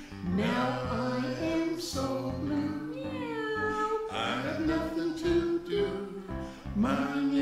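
A song: a voice singing over instrumental backing.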